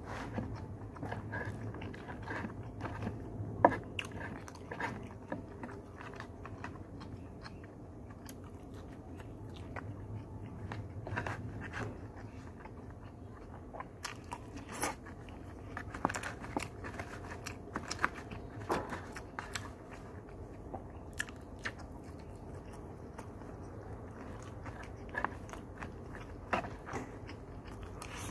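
Close-up chewing and biting of a lunch box of rice and stir-fried vegetables, with scattered sharp clicks of a spoon against the food and container, the loudest about four seconds in. A low steady hum runs underneath.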